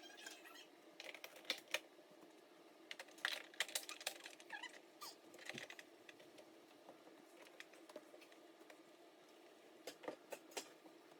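Scattered light clicks and taps from handling and wiping refrigerator parts during cleaning, in a few short clusters over a faint steady hum.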